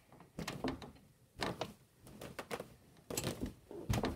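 Irregular knocks, clicks and clatters in small clusters about a second apart, loudest near the end.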